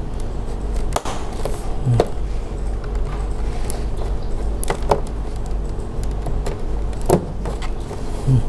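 A few sharp plastic clicks as the snap clips along the top edge of an all-in-one PC's back cover are pried loose with a screwdriver, over a steady low hum.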